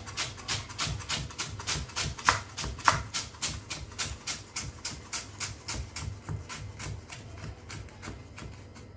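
Kitchen knife rapidly slicing cabbage into thin shreds on a wooden chopping board, a steady run of about five cuts a second that grows fainter over the last few seconds.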